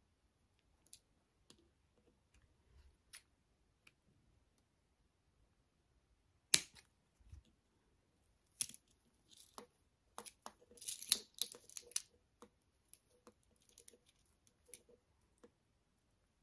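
Beaded wire being handled and twisted: scattered small clicks and rattles of seed beads and thin wire, with one sharp click about six and a half seconds in and a busier stretch of clicking and rustling in the middle.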